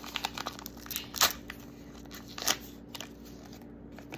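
Paper wrapper around a Mini Brands miniature crackling and crinkling as it is unfolded by hand, with a run of sharp crinkles, the loudest about a second in and again about two and a half seconds in, dying down near the end.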